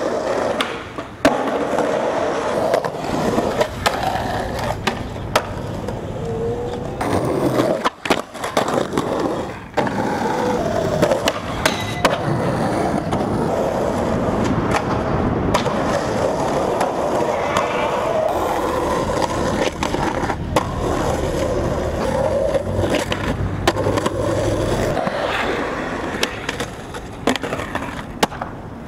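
Skateboard wheels rolling on concrete, broken by many sharp clacks of board pops and landings. There is a scrape of trucks grinding a concrete ledge near the end.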